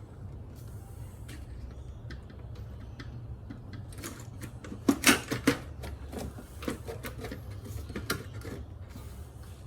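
Scattered clicks and knocks of hand tools and engine parts being handled, with a quick cluster of louder knocks about halfway through, over a low steady hum.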